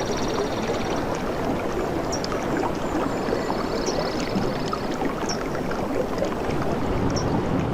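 Running water splashing and gurgling steadily, with small birds chirping high above it and one rapid trill from about two and a half to four seconds in.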